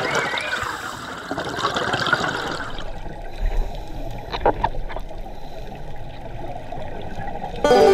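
Muffled underwater noise of scuba divers' exhaled bubbles, recorded by a GoPro in its underwater housing, with a few sharp clicks midway. Plucked-string music starts just before the end.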